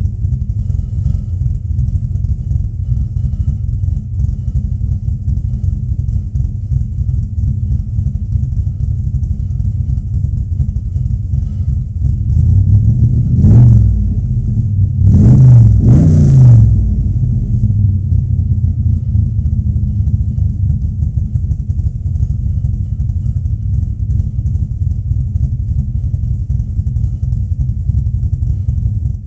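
Ford 347 stroker small-block V8, with long-tube headers and a Borla muffler, running at an aggressive idle. It is blipped on the throttle three times, roughly halfway through, and then settles back to idle.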